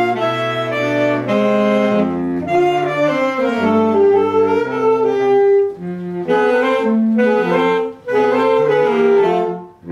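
Saxophone quartet playing a traditional jazz piece, several saxophones sounding together in chords. The phrases break off briefly about six and eight seconds in.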